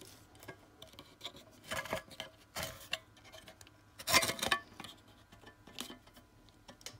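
Hand-held can opener's cutting wheel being cranked around the bottom rim of a tin can: irregular clicking and crunching of metal, loudest about four seconds in.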